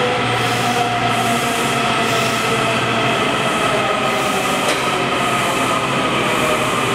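Kawasaki 7000-series metro train pulling into a station and slowing, its traction motors giving several steady whining tones that drift slightly down in pitch over the rush of wheels on rail. A brief click about four and a half seconds in.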